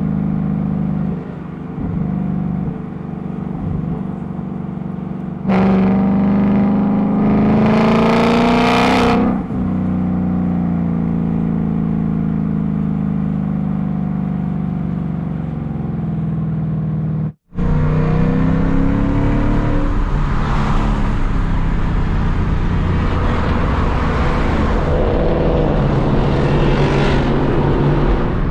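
Ford Mustang engines running. One car idles, then revs hard for about four seconds with the pitch climbing before it drops back. After an abrupt cut, another car accelerates and passes, its engine note rising and falling.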